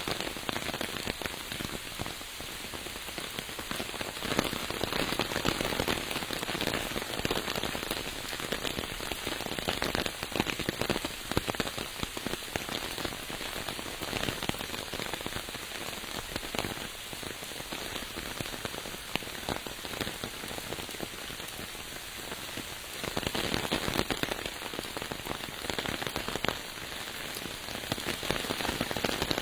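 Steady rain falling, a dense hiss of many small drop impacts, growing somewhat louder about three-quarters of the way through.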